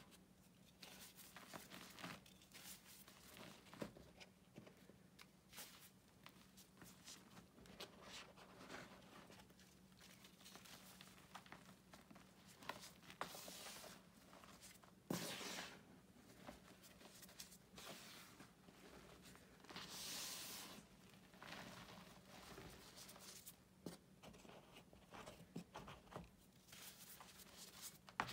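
Faint crunching and swishing of pink-dyed powdered gym chalk being scooped and crushed by hand in a plastic bucket: a steady scatter of small crackles, with a few louder soft swishes of powder.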